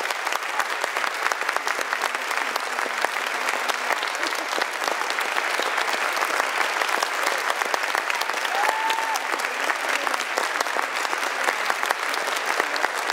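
Audience and band members applauding, a steady dense clapping, with one short high call rising out of it about two-thirds of the way through.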